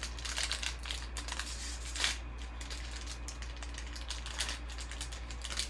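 Trading cards and their foil packs being handled and flipped through: a run of light clicks, ticks and snaps, a little louder about two seconds in, over a steady low electrical hum.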